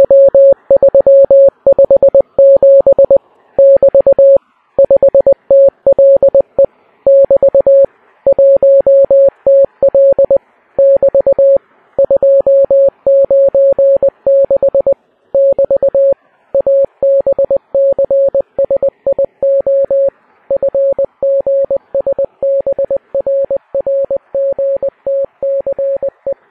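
Morse code from a simulated radio's Morse key: a single medium-pitched tone keyed on and off in quick dots and dashes, spelling out an Enigma-encrypted message. It slowly fades toward the end.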